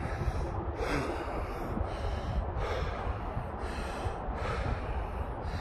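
A hiker's heavy breathing while climbing a trail, hard breaths about once a second over a low rumble.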